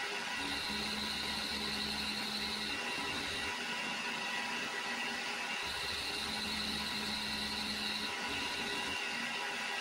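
Milling machine running, a small end mill taking light cuts between crankshaft webs as the work goes back and forth. A higher whine comes in twice for about two seconds each time over the steady machine noise.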